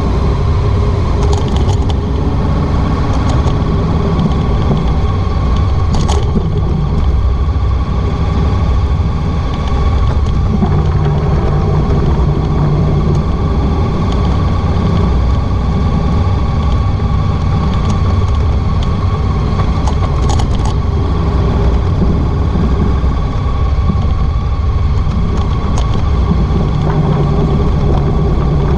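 Honda ST1300 Pan European motorcycle's V4 engine running steadily on the move, with wind and road noise, picked up at the back of the bike.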